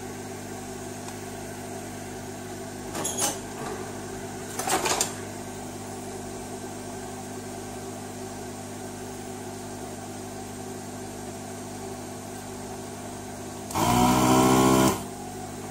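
A steady electrical hum from workbench equipment runs throughout, with a couple of short faint noises a few seconds in. Near the end a loud buzz starts abruptly, lasts about a second and stops.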